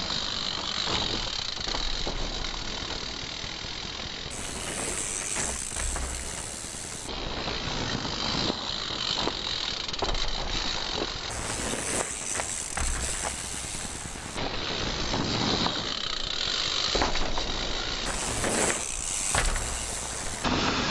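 Mountain bikes riding over a dirt trail feature: a steady hiss of tyres and movement with scattered clicks and rattles, changing abruptly several times as short clips are cut together.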